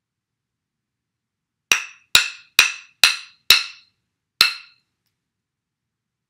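Rhythm sticks struck together six times in a four-beat rhythm: five sharp clicks about half a second apart, then a gap twice as long and one last click.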